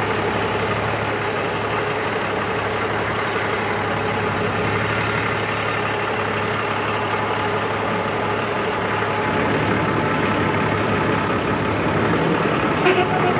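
Heavy diesel tractor truck hauling a lowboy trailer, its engine running steadily at low speed. A couple of short knocks come near the end.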